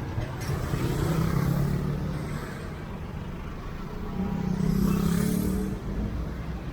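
Street traffic with motor vehicles passing by, the engines swelling loudest about a second in and again around five seconds in.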